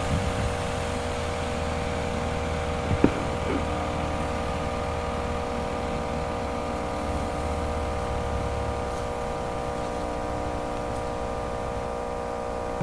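Tractor working a Buzlusan field sprayer, running at a steady speed: a constant mechanical whine over a low engine hum. A single sharp knock about three seconds in.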